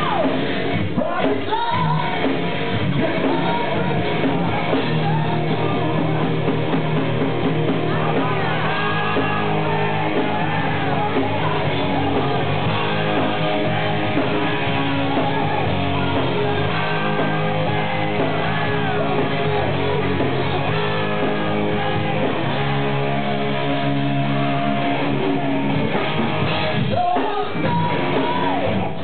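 Live heavy metal band playing: distorted electric guitars and drums with a singer shouting and singing into the microphone, in a large room.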